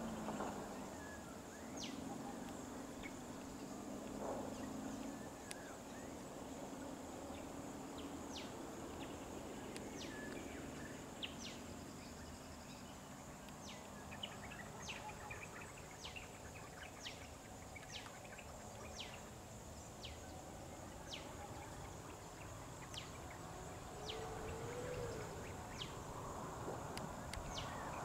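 Insects droning with a steady high hiss, with short high chirps that sweep downward repeating about once a second through most of the stretch; a faint low engine hum of idling vehicles in the first few seconds.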